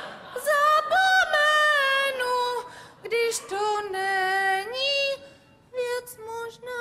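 A woman singing a slow song solo, holding long notes that slide from one pitch to the next, with short breaths between phrases.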